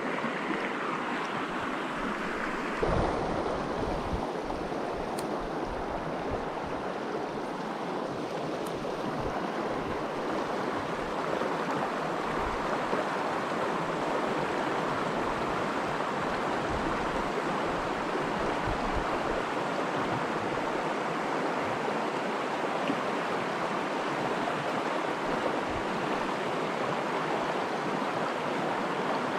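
A shallow river rushing steadily over rocks, with a low thump about three seconds in.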